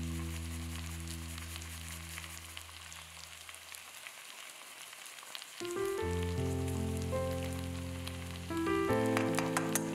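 Cubed potatoes sizzling and crackling in hot oil in a pot as they fry for curry aloo. Under it, soft background music of held chords fades out and comes back with new chords about halfway through.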